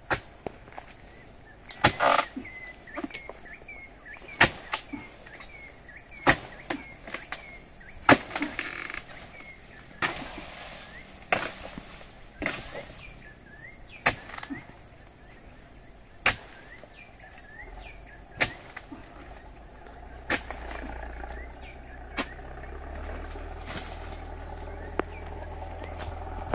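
An oil-palm harvesting chisel (dodos) on a long pole strikes again and again into the base of a palm frond, one sharp chop every one and a half to two seconds: the fronds are very hard and need many blows. Behind it are a steady high insect whine and faint short chirps.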